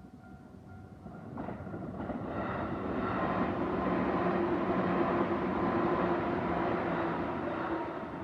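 A train passing over a Japanese level crossing, building from about a second in, loudest in the middle and fading near the end. The crossing's warning bell dings steadily at the start and is drowned out as the train goes by.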